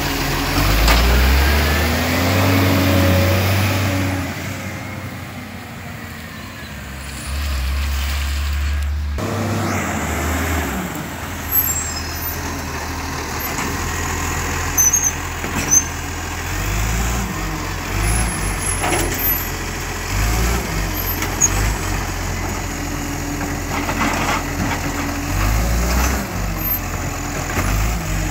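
Side-loading garbage truck collecting wheelie bins: its diesel engine running and swelling as it pulls forward and works the hydraulic lifting arm. Sharp clanks and knocks come at intervals in the second half as bins are tipped, shaken and set back down.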